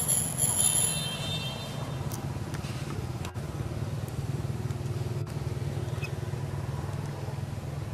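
A steady, low engine hum, like a motor vehicle running nearby. In the first second or so there is a brief high-pitched chirping call.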